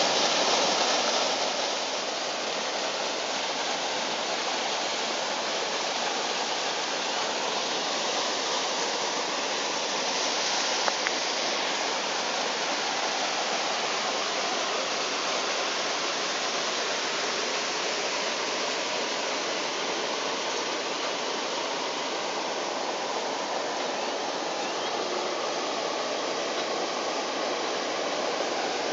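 A small waterfall pouring into a pool: a steady rush of falling water, a little louder in the first couple of seconds.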